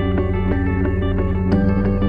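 Background music: sustained chords over a steady low bass, changing chord about one and a half seconds in.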